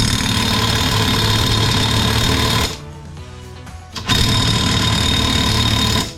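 Impact wrench hammering at a seized brake-assembly nut in two bursts, the first about two and a half seconds long and the second, after a short pause, about two seconds long.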